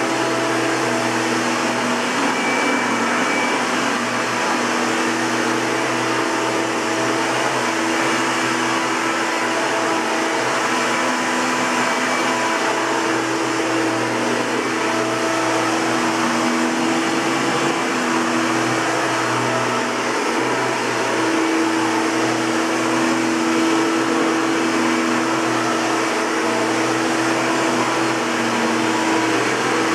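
Hoover Caddy Vac Elite upright vacuum cleaner running steadily, a continuous whir with a hum that wavers slightly in pitch.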